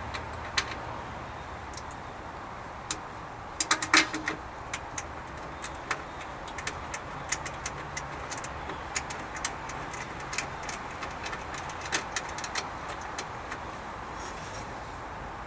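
Light metal clicks and clinks of battery hold-down hardware and hand tools being handled, with a cluster of louder knocks about four seconds in.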